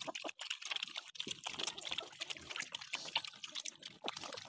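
A group of piglets eating feed from a bamboo trough, a dense, irregular run of quick smacking and slurping chews.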